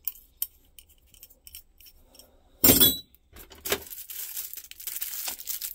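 Light metal clicks of an adjustable wrench being handled, then one sharp metal clank with a brief ring as it goes into a steel tool case. After that comes a rustling, crinkling plastic sleeve around a chainsaw file being handled.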